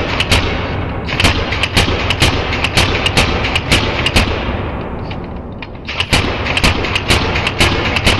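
2009 Shocktech SFL Autococker paintball marker firing rapid strings of shots, about five a second, with a brief break about a second in and a longer pause of about a second and a half past the middle.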